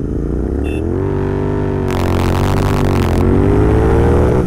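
A short horn beep, then two motorcycles pulling hard from a standing start side by side, the engine note climbing steadily as they accelerate. The sound comes from a Royal Enfield Interceptor 650 parallel-twin and a Yamaha MT-01 V-twin.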